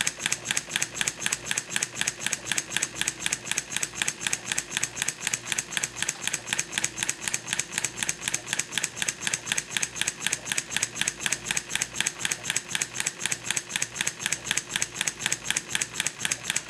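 Two-cylinder marine compound model steam engine running fast, its exhaust and valve gear making an even, rapid clicking beat of about five a second.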